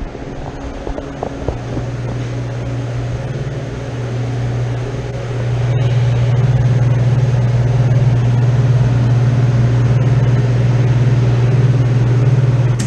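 Air-conditioning condensing unit's compressor running with a steady low hum, which grows louder about a second and a half in and again about five seconds in, then holds.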